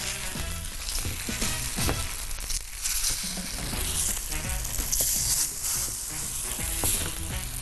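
Seafood-stuffed baladi bread (hawawshi) sizzling in oil on a hot griddle, with a few short clicks.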